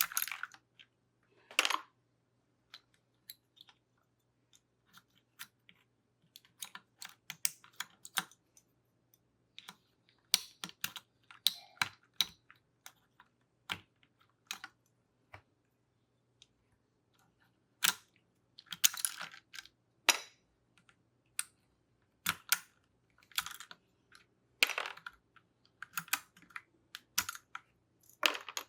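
Plastic keycaps being plucked off a keyboard one by one: irregular sharp clicks and brief plastic clatter, in clusters with short pauses between.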